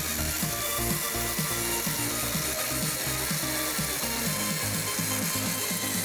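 Background music: a steady run of short melodic notes over a repeating bass line.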